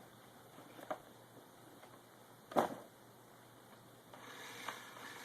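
Handling of a toy blaster's packaging and plastic parts as they are taken out of the box: a few light clicks, one sharp knock about two and a half seconds in, then rustling near the end.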